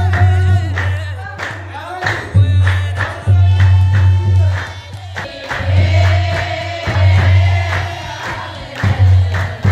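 A group of women singing a Mauritanian medh, a popular praise song, to rhythmic hand claps and a deep drum beat, likely the t'bel.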